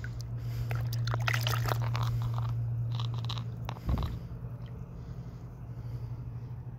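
Gravel crunching and scraping under shallow water as a hand digs a fossil megalodon tooth loose, with a little sloshing. Clusters of short crunches come in the first few seconds, the sharpest just before the middle, over a steady low hum.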